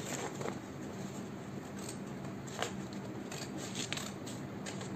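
Scissors snipping through a yellow craft sheet while cutting out a heart shape: a few separate crisp snips at uneven gaps, over a steady low hum.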